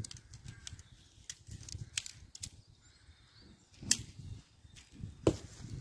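Aluminium tent pole sections clicking together at their joints as the pole is fitted section by section: several sharp clicks, the loudest about four seconds in and again near the end.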